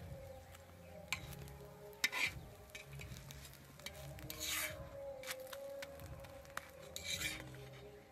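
A metal spatula scrapes against an iron tawa while an egg paratha is folded and turned on it, in several short scrapes a second or two apart, with a faint sizzle of frying.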